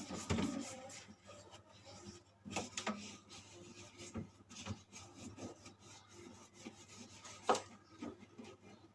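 Irregular rubbing and scraping strokes of scrubbing a surface, with a few sharper knocks; the loudest comes about seven and a half seconds in.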